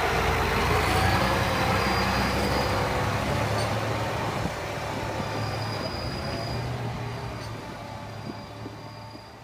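Farm tractor's engine running steadily, heard from inside the closed cab as a low drone, fading away over the second half.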